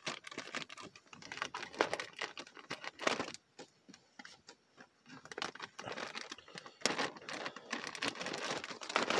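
Clear plastic bag around a plush toy crinkling and rustling in irregular bursts as it is handled and opened with scissors.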